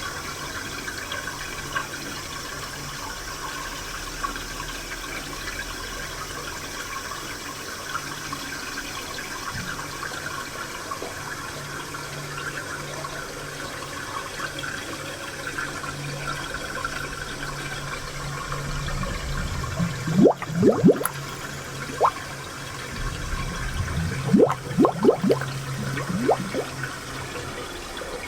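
Spring water flowing in a steady trickle. It gurgles more loudly in two spells, about two-thirds of the way in and again near the end, with short bubbling blips that rise in pitch.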